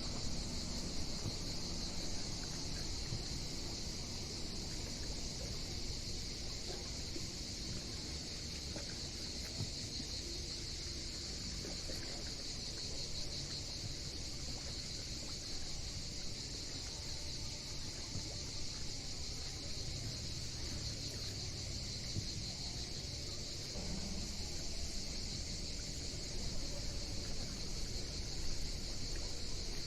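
A steady, high-pitched chorus of summer insects that does not let up, with a low steady rumble beneath it.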